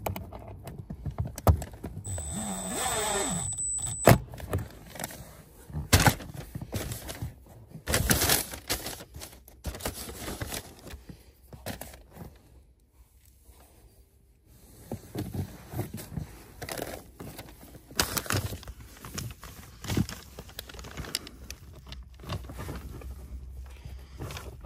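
Clicks, knocks and scrapes of tools and metal parts as a car's blower motor fan is bolted back into place under the dashboard. About two seconds in there is a short motor whir from a power driver that falls in pitch and ends in a sharp click.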